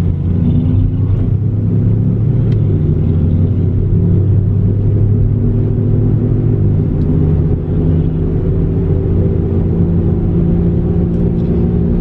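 Car engine and road noise heard from inside the cabin while driving: a steady low rumble whose engine note shifts slightly in pitch.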